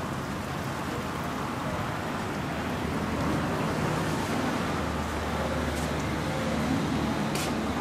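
Heavy rain falling steadily in a downpour, a constant even hiss.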